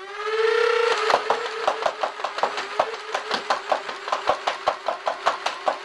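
Upgraded flywheel motors of a Nerf Rapidstrike CS-18 on 10.4 volts spooling up with a rising whine, then about a second in the blaster fires full-auto: a fast, even run of clacks, about six darts a second, over the steady motor whine, which drops slightly in pitch once the darts start feeding.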